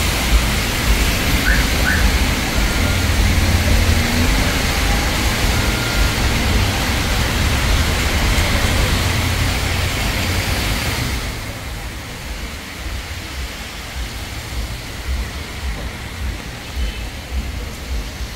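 Road traffic on a wet road in the rain: a steady hiss of wet noise over a low rumble, which drops away sharply about eleven seconds in to a quieter wash.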